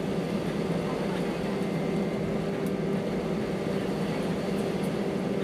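Steady cabin noise inside an Airbus A319 taxiing, its jet engines running at low taxi thrust: an even rushing hum with a constant low drone.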